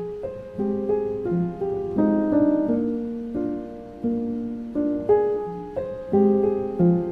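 Background music: a slow, gentle piano melody with notes struck one after another, each fading away.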